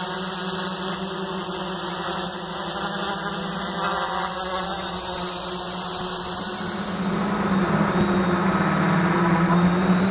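DJI F450 quadcopter's electric motors and propellers buzzing steadily in flight, a pitched hum that wavers slightly as the throttle changes. About seven seconds in the buzz gets louder and harsher, picked up close to the motors by the onboard action camera.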